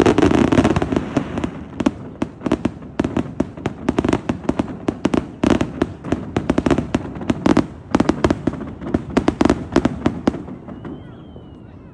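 Aerial fireworks: a loud burst right at the start, then a rapid series of sharp bangs and crackles for about ten seconds that thins out and dies away near the end.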